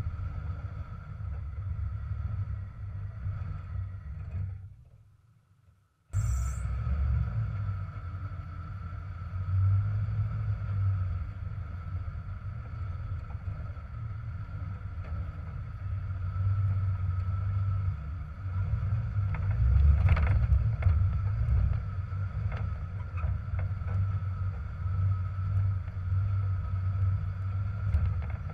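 Jeep TJ running at low speed while crawling over rocks, heard as a steady low rumble from a hood-mounted camera. The sound fades out about four seconds in and cuts back in near six seconds, then grows louder with a few knocks about twenty seconds in.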